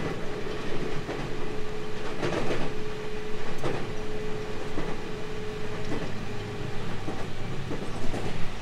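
Running noise heard inside a JR Central 313 series 2500-subseries electric train: a steady rumble with a constant tone that stops about seven seconds in, and two knocks a second and a half apart.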